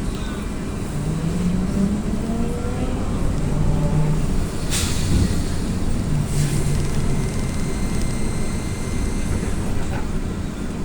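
AKSM-321 trolleybus heard from inside the cabin: the traction motor's whine rises in pitch over the first few seconds as it gathers speed, over a steady rumble from the road. Two short clunks come about five and six seconds in.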